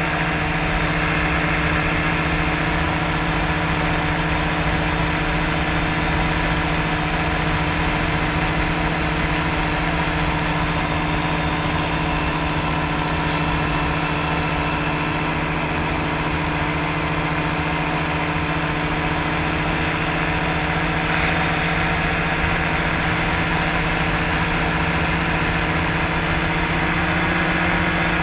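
Engine of an open-cockpit ultralight aircraft running steadily in flight, at an even pitch, with wind noise rushing over the microphone.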